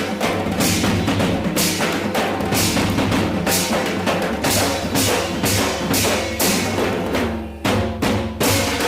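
Background music with a steady drum beat, about two beats a second, breaking off briefly near the end.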